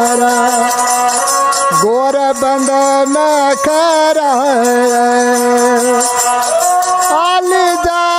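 Ravanahatha, a Rajasthani bowed spike fiddle, playing a folk melody: long held notes joined by slides and quick ornamental turns.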